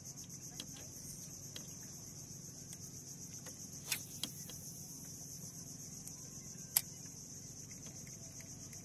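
Steady high-pitched insect chorus, finely pulsing like crickets, with a few sharp clicks about four seconds in and again near seven seconds.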